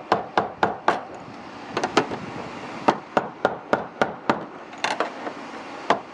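Hammer tapping the fuel pump's retaining ring back on over the tank opening: quick runs of sharp taps, about three or four a second, with short pauses between runs.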